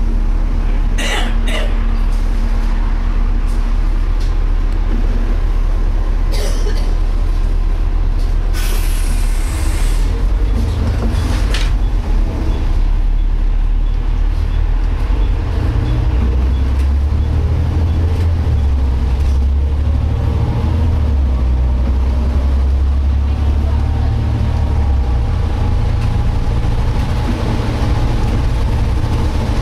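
Drivetrain of a Volvo B7TL double-decker bus running under way, heard from inside, with a steady low drone. About nine seconds in there is a short hiss of air from the air brakes. In the second half a faint whine slowly climbs in pitch, which the uploader takes for a strange noise from the differential.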